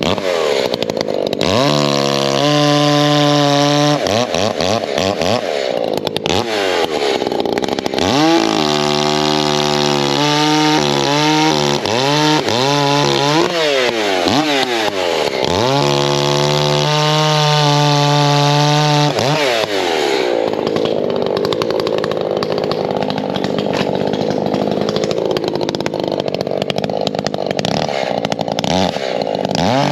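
Ported Echo chainsaw running hard and cutting oak rounds. The engine revs up and down again and again between steady stretches, and from about two-thirds of the way in it settles into a rougher, steadier note under load in the cut.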